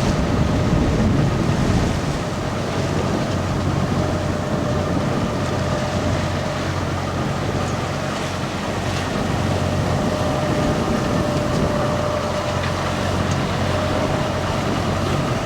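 A sailing yacht's engine runs steadily under motor, a constant hum over the rush of wind and water.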